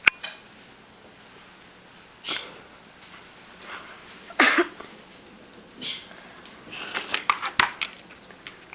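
Scattered light clicks, taps and rustles, with a short breathy puff about four and a half seconds in and a quick run of clicks near the end.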